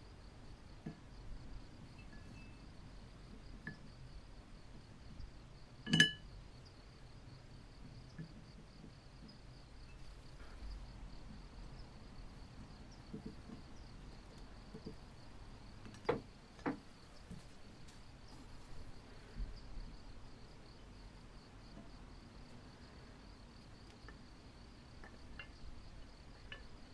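Quiet handling of small cast metal coin-bank parts. There is one sharp, ringing metallic clink about six seconds in, two sharper knocks in quick succession around sixteen seconds, and a few faint ticks and rustles between them.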